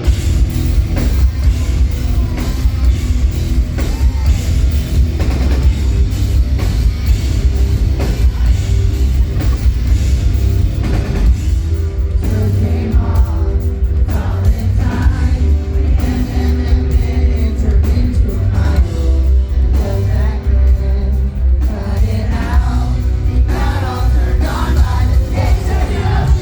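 Rock band playing live, loud, with heavy bass and drums and a singer's voice over them. The singing stands out more from about halfway through.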